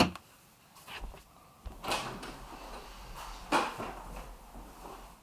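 A wooden drawer knocking shut at the start, then a few soft thuds and rustles of someone moving about the room.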